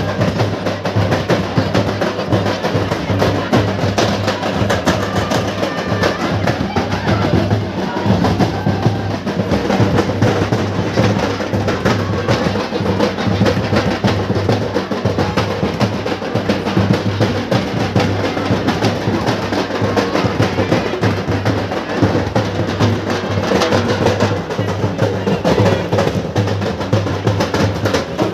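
Drums played in a fast, continuous rolling beat, as dance music.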